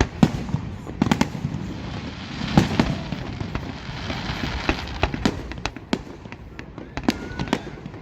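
Fireworks going off: an irregular series of sharp bangs from aerial shells, with a denser stretch of crackling about three seconds in.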